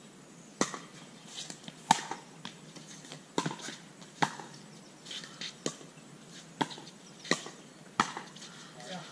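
Pickleball rally: paddles striking the hollow plastic ball, a string of sharp pops about once a second, eight or so in all.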